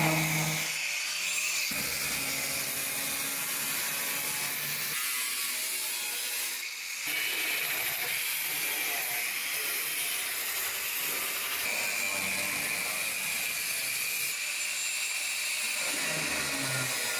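Electric angle grinder cutting into the old steel rocker panel, throwing sparks: a steady high-pitched whine that eases briefly about six seconds in, then runs on.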